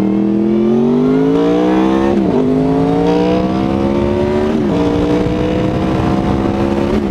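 2006 Honda VFR800's V4 engine accelerating hard through a gutted exhaust. The pitch climbs steadily and drops sharply at each upshift, twice and again at the very end.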